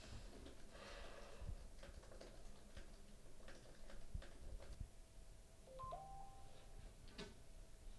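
Faint, irregular clicks of typing on a laptop keyboard. About six seconds in, a brief electronic tone sounds that steps up in pitch.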